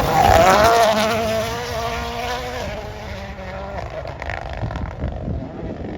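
Rally car engine passing at speed and then pulling away, its note wavering up and down with throttle and gear changes and fading over the next few seconds.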